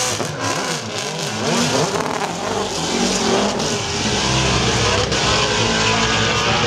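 Hill-climb race car launching from the start line and accelerating hard up the course. The engine's pitch rises and drops several times over the first few seconds as it goes up through the gears, and it stays loud after that.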